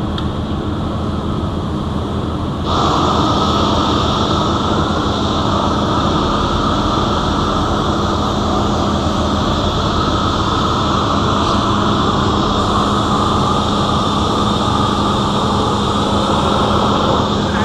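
Steady roar of welding-shop equipment with a low electrical hum, growing louder and brighter about three seconds in and then holding steady.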